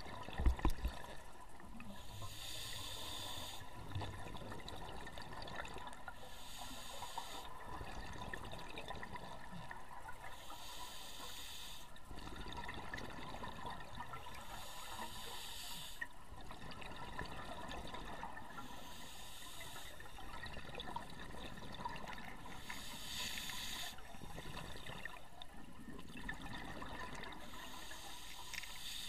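Scuba regulator breathing heard underwater: regular bursts of hiss and bubbling, each about a second and a half long, coming about every four seconds. A thump about half a second in is the loudest sound.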